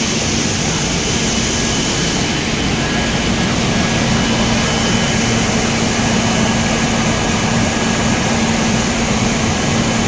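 Coffee bean processing machinery running steadily: a loud, even mechanical din with a constant low hum and faint high whines, as beans pour through the machines.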